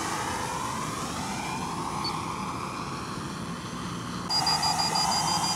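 Quadcopter's electric motors and propellers whirring, the pitch sliding slowly up and down as it flies around. About four seconds in the sound steps louder and a rapid string of short high-pitched beeps starts: the low-battery alarm going off at the end of the 3S 4400 mAh pack's charge.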